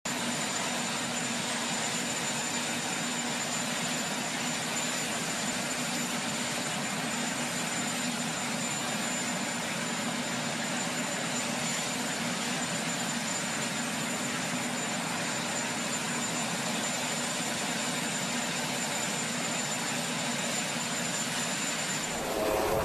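Sikorsky VH-3D Sea King presidential helicopter running on the ground, a steady rush of turbine noise with a thin high whine. Just before the end it turns louder and lower.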